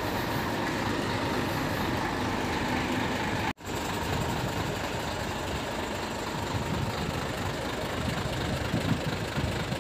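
Heavy diesel truck engine idling steadily, with a brief cut-out about three and a half seconds in.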